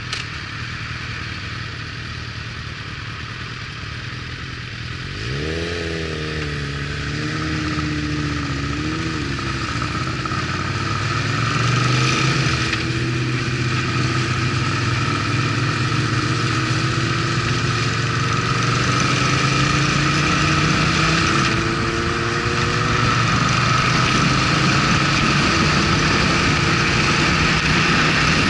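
Motorcycle engine under way: about five seconds in the engine note rises and wavers through gear changes, then climbs slowly with speed, dips briefly at a shift about three-quarters of the way through, and steadies, getting louder overall.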